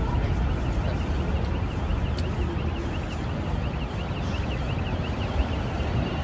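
City street background with a steady low traffic rumble, and a rapid string of high, repeated chirps through the second half.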